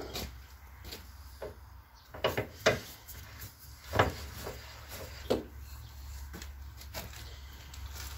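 Sparse wooden knocks and clicks as a freshly turned wooden piece is handled and taken off a stopped wood lathe, from between the spur drive and the tailstock center. The loudest knock comes about four seconds in, with a cluster of smaller ones just before it.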